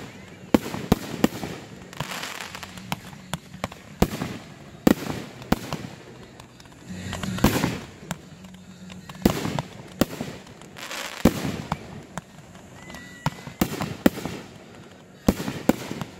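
Aerial fireworks going off in a rapid, irregular series: sharp bangs of shells breaking overhead, some coming several a second, with swells of hissing between them.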